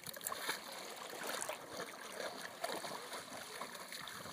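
Shallow water running over a stony bed, with light splashing from a Border Collie wading through it.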